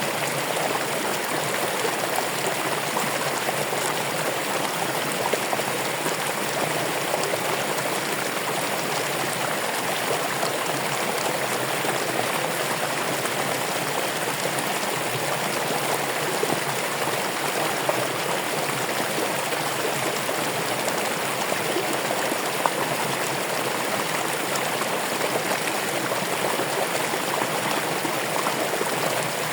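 Running water flowing steadily: an even, unbroken rushing noise with fine splashing throughout.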